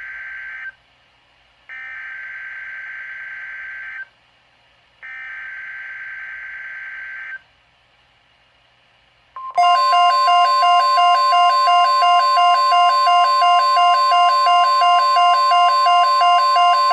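NOAA Weather Radio Emergency Alert System (EAS) alert opening. Three SAME digital header data bursts, each a harsh buzzy screech with about a second's pause between them, are followed a couple of seconds later by the loud, steady 1050 Hz warning alarm tone, with a beep pulsing about twice a second on top. This sequence marks the start of an alert, here for a severe thunderstorm watch.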